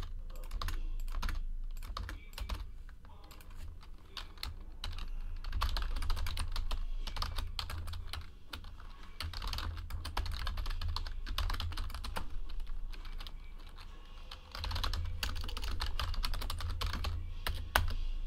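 Typing on a computer keyboard, uneven runs of key clicks with short pauses, while a spreadsheet is edited; one sharper click near the end.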